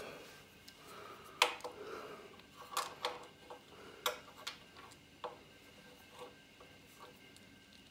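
Slip-joint pliers clicking and knocking against a metal bracket as it is gripped and twisted into line: a handful of sharp metallic clicks with a short ring. The loudest comes about a second and a half in.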